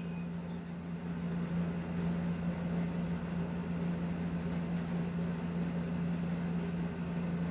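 A steady low hum over a faint, even hiss of room noise.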